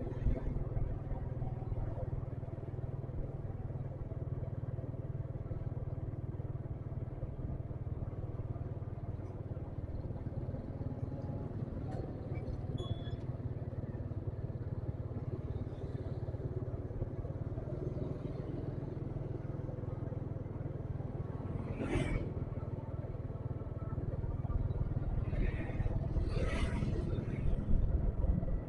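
Motorcycle engine running steadily under way, with a low rumble of wind and road on the helmet or handlebar microphone. There is a sharp knock about three-quarters of the way through, and louder passing traffic near the end.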